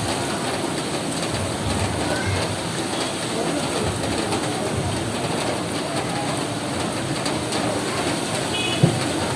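Steady rain falling on a roof, an even hiss and patter, with a single short knock near the end.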